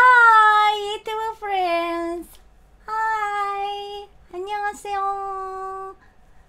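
A woman's high sing-song voice holding several long, drawn-out notes, each sliding slightly down in pitch, with short breaks between them.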